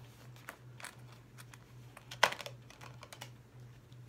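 Plastic Blu-ray case being handled: scattered light clicks, with one sharp snap about two seconds in, as the case is opened and the disc is taken off its hub.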